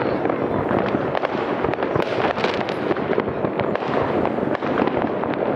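Fireworks going off in a dense, continuous barrage of bangs and crackling, the reports overlapping with no pause.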